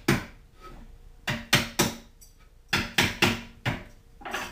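Small hammer knocking wedges into the joints of a plywood knockdown stand: about nine sharp strikes in quick groups of two or three.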